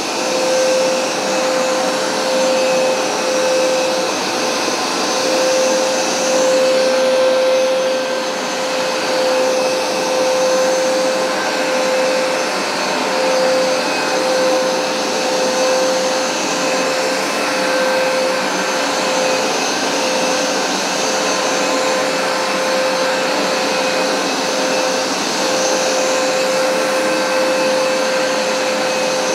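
Hoover SmartWash Pet carpet cleaner running steadily during cleaning passes: a constant motor whine with a strong steady hum-like tone over a dense rush of suction and brush noise.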